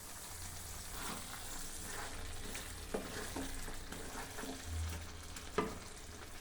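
Country chicken pieces sizzling gently in a pan as a spoon stirs in freshly added garlic and coriander powder, with a couple of sharp clicks of the spoon against the pan, the stronger one near the end.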